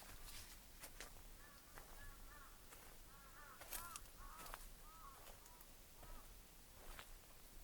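A bird calling faintly in a quick series of short, arched notes, starting about a second and a half in and stopping around six seconds, over sharp crunches of footsteps on dry leaves.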